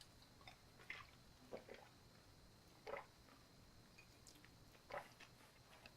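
Near silence with a few faint, short clicks and rustles a second or two apart, like small objects being handled.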